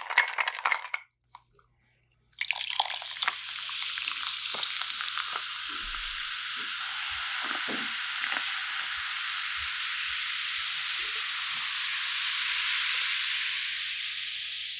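A short clink of tableware, then from about two seconds in a steady sizzle-like hiss that eases slightly near the end, with a few faint soft clicks under it.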